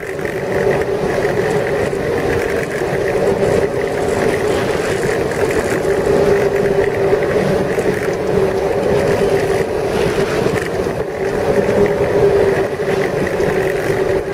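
Ski boat's engine running steadily at speed: a constant hum over a broad rushing noise.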